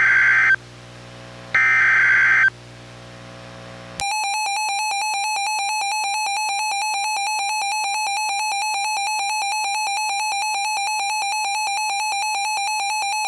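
NOAA Weather Radio SAME header data bursts, a harsh digital screech: the tail of one, then one more about a second long, marking the start of an emergency alert. About four seconds in, the Reecom R-1630 weather radio's warning alarm for a tornado warning starts, a steady, rapidly pulsing electronic tone that stops at the very end.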